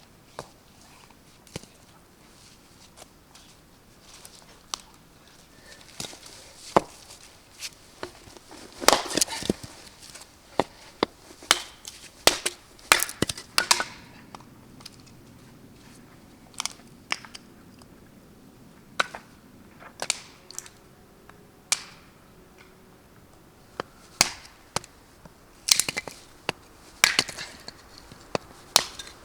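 Irregular sharp knocks, cracks and crunching from hands-on work in a small room, some coming in quick clusters.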